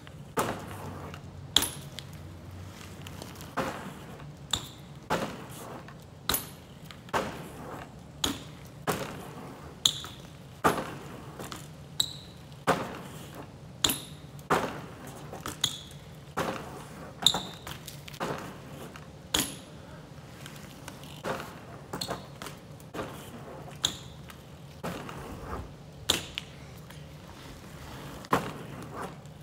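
A series of sharp knocks, each with a short metallic ping, coming irregularly about once a second over a steady low hum.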